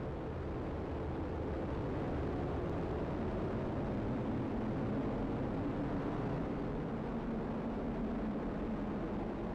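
Atlas V rocket's RD-180 main engine and two solid rocket boosters firing during liftoff: a steady, deep rumble of rocket exhaust noise.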